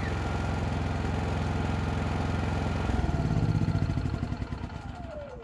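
Cummins Onan P4500i inverter generator running steadily, then shut off about three seconds in and winding down, its pitch falling as it stops.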